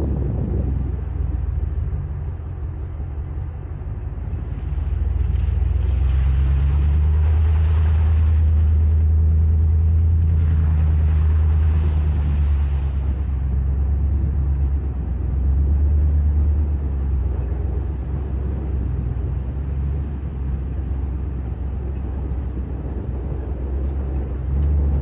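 Ford Raptor pickup driving a rough off-road trail: a steady, deep engine and drivetrain rumble that swells and eases with the throttle, with two stretches of hissing noise a few seconds in and again around the middle.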